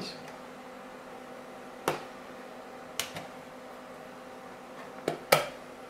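Pre-war Zeiss Ikon Ikonta 520/2 folding camera being folded shut by hand: a handful of short sharp metal clicks from its struts and front bed, the loudest near the end as the bed snaps closed.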